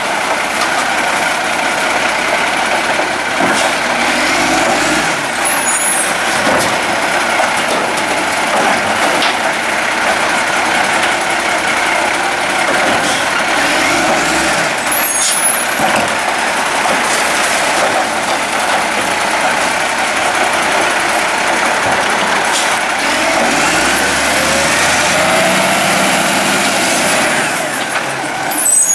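Iveco Acco side-loader garbage truck's Cummins ISC diesel running steadily while its hydraulic arm lifts and empties wheelie bins. Short sharp air hisses come about six seconds in, again around fifteen seconds, and at the end as the truck moves off.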